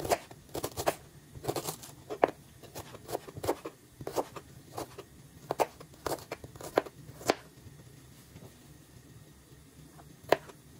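Kitchen knife chopping an onion on a plastic cutting board laid on a towel: a quick run of uneven cuts for about seven seconds, then a single cut near the end.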